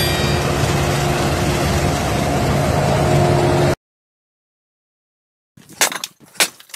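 Self-propelled windrower running in the field as it cuts the crop, a steady machine drone with a low hum; it cuts off suddenly after almost four seconds. After about two seconds of silence, a quick series of sharp knocks and clinks begins as a hammer strikes a granite block and splits it.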